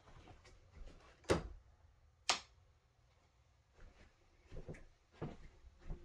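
Two sharp clicks about a second apart, followed by several softer knocks and taps in a small room.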